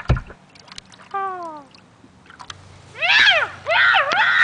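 Cat-like yowling: a short falling cry about a second in, then two loud, high, wavering yowls, one near three seconds and one just before the end. A thump at the very start.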